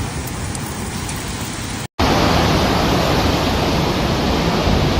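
Steady rushing noise of water, with an abrupt cut about two seconds in to a louder stretch of the same rush.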